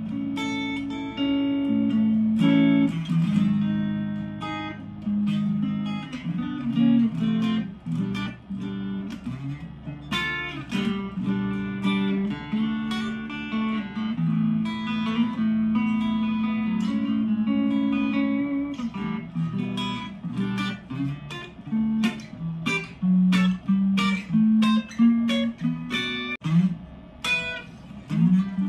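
Harley Benton Modern Strat SSH electric guitar played with a clean tone: a continuous run of picked single notes and chords, each struck sharply and ringing on.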